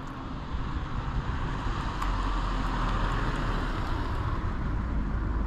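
Wind buffeting the microphone: an uneven low rumble with a steady hiss of outdoor noise over it, a little stronger from about half a second in.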